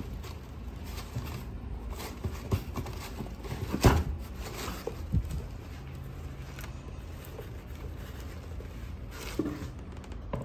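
Handling noise from a canvas high-top sneaker being turned and its tongue pulled back over a cardboard shoebox lined with tissue paper: scattered soft rustles and taps, with one sharper knock about four seconds in and a smaller one a second later.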